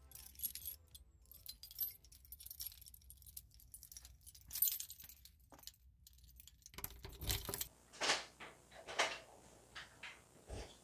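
A bunch of keys jangling and clicking as a key is fitted into a door lock. After a sudden change partway through, there are a few sharper knocks and clicks about a second apart.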